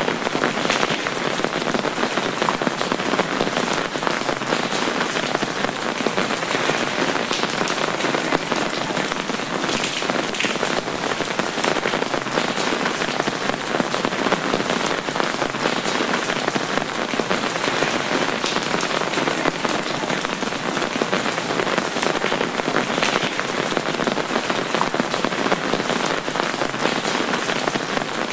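Steady rain drumming on an umbrella canopy overhead: a dense, even patter of drops.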